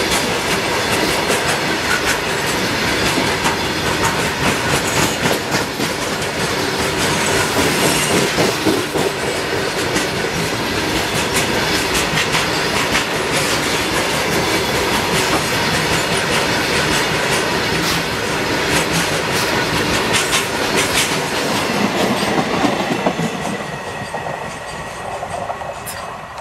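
A long freight train of loaded, tarpaulin-covered goods wagons rolling past close by, its wheels clattering steadily over the rail joints. The sound fades near the end as the last wagon passes and moves away.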